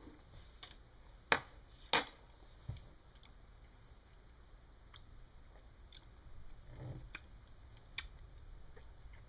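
Quiet mouth sounds of a person tasting hot sauce: wet lip smacks and tongue clicks, the two sharpest about one and two seconds in, then fainter ticks and a short low murmur near the end.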